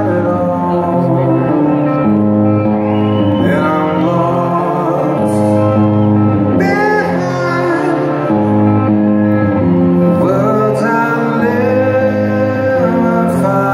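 Live rock band playing through a large hall's PA, with a singer over sustained guitar chords, heard from far back in the audience.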